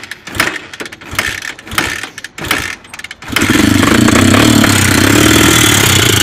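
Single-cylinder 169FMM four-stroke engine of an XR250R-type motorcycle being cranked with a few sharp strokes, catching about three seconds in and running steadily. It runs with a knock from inside the engine and has almost no compression, a failure later traced to a broken rocker arm with its roller bearing coming apart.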